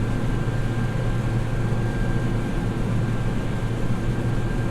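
Vehicle engine running at a steady pace, a constant low drone with a faint steady high whine over it.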